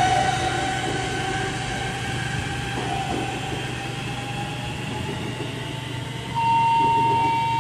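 Passenger coaches rolling in and stopping, with a drawn-out squeal from the wheels and brakes that slides slowly lower in pitch as the train slows, over a steady low hum. About six seconds in, a steady high tone sets in and holds, louder than the rest.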